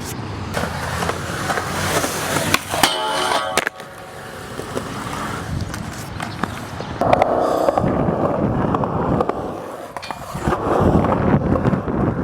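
Skateboard wheels rolling on wet skatepark concrete, with sharp clicks and knocks of the board, a brief high screech about three seconds in, and the rolling growing louder near the end.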